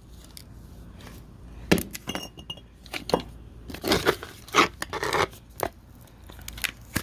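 Cardboard makeup palette being bent and pulled apart by hand: a string of separate sharp cracks and clicks, busiest about four to five seconds in.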